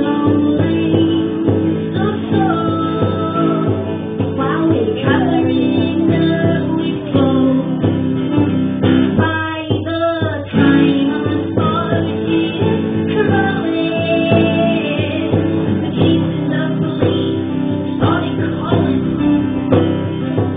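Acoustic guitar strummed with a voice singing along, a live song picked up by a phone's microphone.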